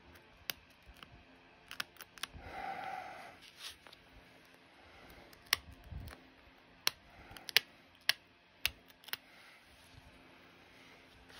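Copper-tipped pressure flaker snapping small flakes off the edge of an opalite arrowhead: about a dozen sharp, irregularly spaced clicks, the loudest in the second half, with a brief softer scuffing noise about two and a half seconds in.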